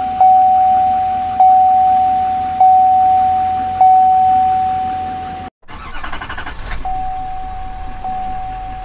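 A Chevy truck's warning chime dings about every second over a diesel engine idling. After an abrupt cut, a second Chevy diesel pickup's starter cranks for about a second and the engine catches and settles into a low idle, while the chime keeps dinging more quietly.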